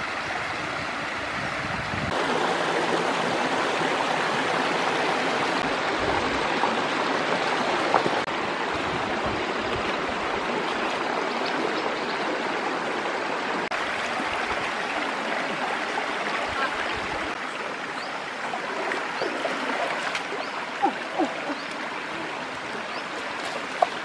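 Shallow rocky stream running over stones, a steady rushing babble. A few brief knocks stand out, the sharpest about a third of the way in and near the end.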